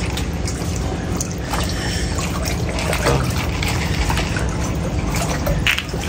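Steady trickling and splashing of water in a shallow frog pond, with small drips and clicks over a low rumble.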